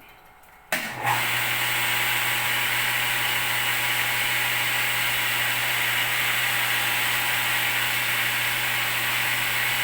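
Electric raw-water feed pump of a water refilling station switched on under a second in, then running steadily with a constant low hum and hiss.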